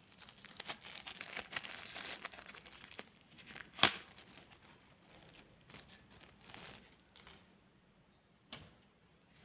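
Thin plastic sticker wrapper crinkling as it is pulled open by hand. About four seconds in comes one sharp, loud tap, followed by a few fainter rustles and a small click near the end.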